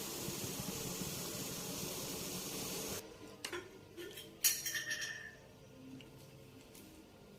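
Steady hiss that cuts off suddenly about three seconds in, followed by a few light clinks of kitchenware, the loudest about a second later.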